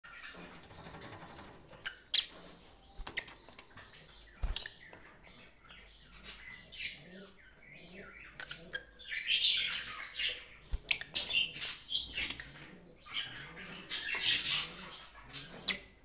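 Fischer's lovebirds chattering: short, sharp high chirps and squeaks mixed with scattered clicks, rising into denser bursts of twittering about halfway through and again near the end.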